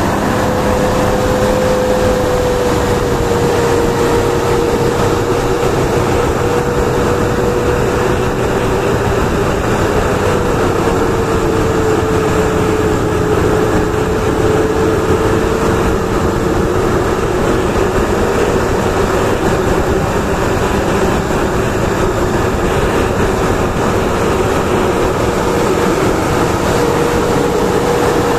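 Steady drone of a heavy vehicle running, with a faintly wavering pitch over a constant rumble and road noise.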